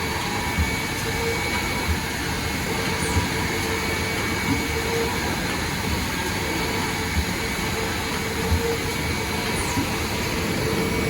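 Fully automatic overlap shrink wrapping machine running: a steady whirring hum with a short low thump about every 1.3 seconds, at an even machine rhythm.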